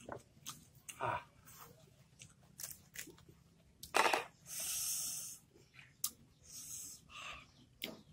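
Small knife cutting crisp pieces off an unripe gajah mango, with clicks and crunches and mouth sounds of chewing. About four seconds in comes a loud sound followed by a hiss of over a second.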